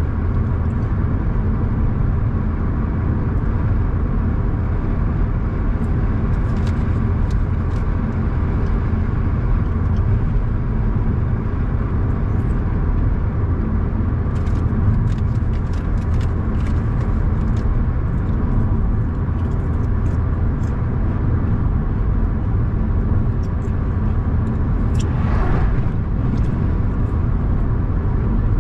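Car driving steadily: a constant low rumble of road and engine noise, with a brief swell of higher sound near the end.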